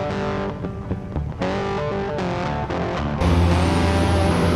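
Electric guitar music; about three seconds in, the loud low running of a heavy semi truck's diesel engine comes in close by, with a thin high whine rising and then holding above it.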